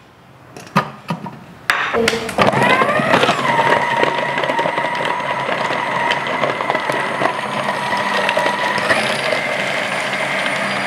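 Philips HR7776 food processor with its chopping blade cutting quartered onion. A few clicks and knocks come as the onion pieces go into the bowl. About two seconds in the motor starts with a rising whine, runs with a steady whine and stops near the end.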